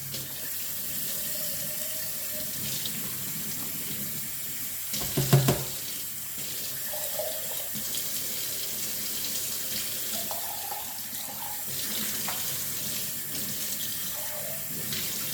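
Kitchen tap running into a sink during hand dishwashing: a steady rush of water, with one loud knock about five seconds in.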